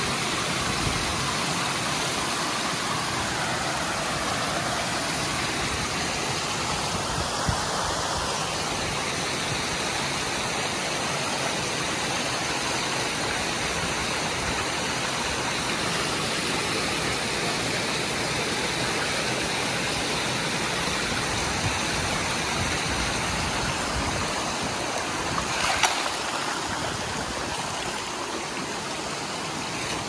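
A small cascade of water splashing steadily down over boulders, with a brief sharp click near the end.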